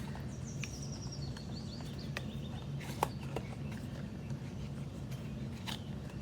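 Scattered sharp clicks of a new snap watch and its packaging being handled, over a steady low hum. About half a second in, a short run of high chirps steps down in pitch.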